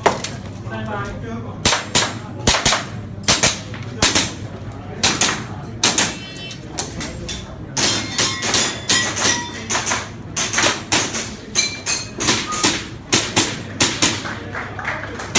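Airsoft guns firing, many sharp shots in quick, irregular succession.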